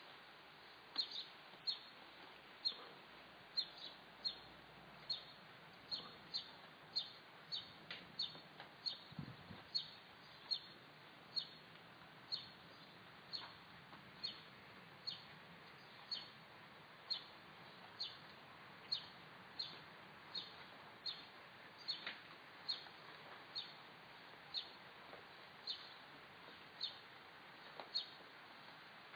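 A bird repeating a single short, high chirp over and over, about one or two a second, faint against a steady outdoor hiss.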